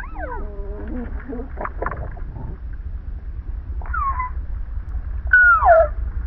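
Gopher calls played back at a quarter of normal speed, so they come out as low, drawn-out groans: several separate cries that each glide downward in pitch, the loudest near the end, over a steady low rumble.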